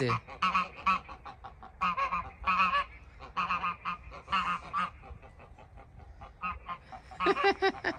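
A small flock of domestic geese honking in a run of short repeated calls, several a second, fading for a stretch a little past the middle and louder again near the end.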